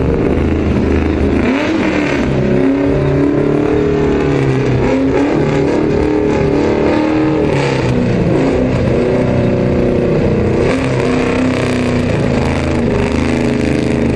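Drift car engine revving hard on track, its pitch climbing and dropping again and again as the throttle is worked through the slides.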